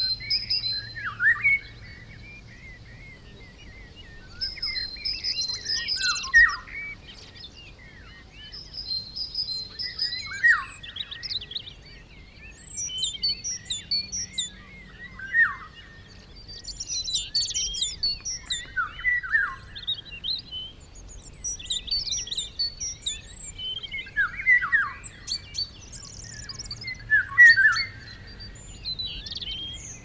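Songbirds singing: short, varied phrases of chirps and trills recurring every few seconds, with calls overlapping one another.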